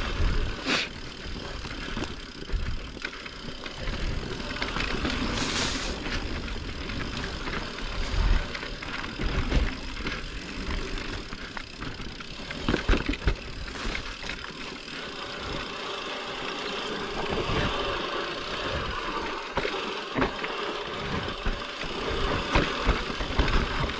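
Mountain bike riding over a dirt trail: steady wind rumble on the microphone with tyre noise and scattered knocks and rattles from the bike over bumps.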